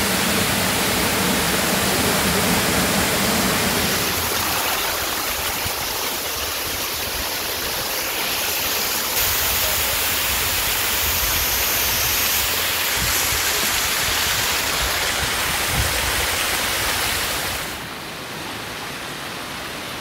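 Waterfall pouring down a rock face: a steady rush of falling water that steps up and down in level a few times and turns quieter near the end.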